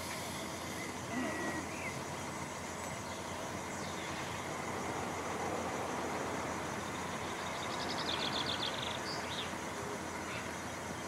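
Steady outdoor background noise with a few short bird chirps, and a quick rapid bird trill about eight seconds in.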